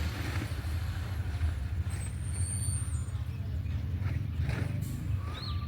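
Tipper truck engine running steadily with a low rumble, a few faint high chirps above it.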